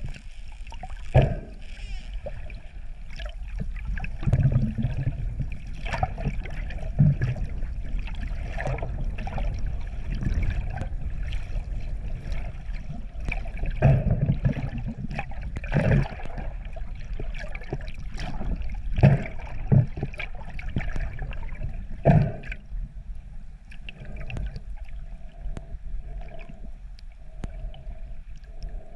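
Water sloshing and gurgling around an underwater camera near the surface, over a steady low rumble, with a series of sudden knocks through the first two-thirds; quieter in the last few seconds.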